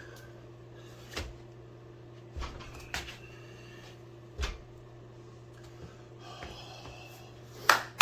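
A few scattered short knocks and bumps over a steady low electrical hum, the loudest one near the end.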